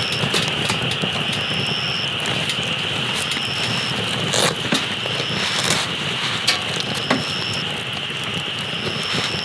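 Wood campfire crackling, with irregular sharp pops, one louder than the rest about halfway through. A steady high shrill of night insects runs beneath it, with a short high chirp repeating about every second and a half, over a low even rumble.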